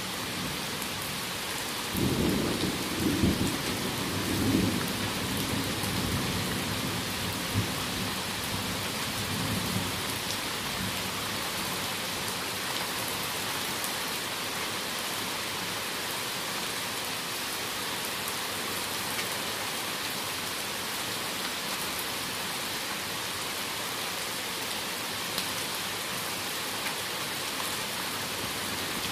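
Heavy rain falling steadily in a forest thunderstorm. A low rumble of thunder comes about two seconds in and dies away over a few seconds, with fainter rumbles after it.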